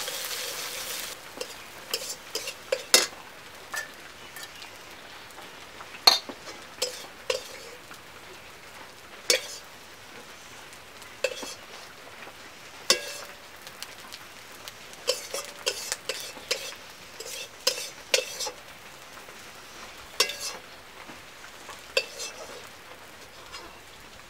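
Metal spatula scraping and clinking against a steel wok and a steel bowl as fried food is stirred and scooped out, in irregular sharp strikes. Food sizzles in the pan during the first second or so.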